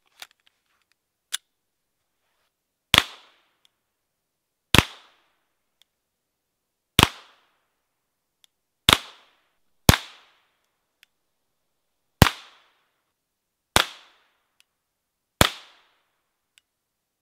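Calibre Innovations CIP22 long-barrelled .22LR pistol being fired single shots: eight sharp cracks, each with a short ring-off, spaced unevenly about one to two seconds apart. A couple of light clicks come at the start as the pistol is handled.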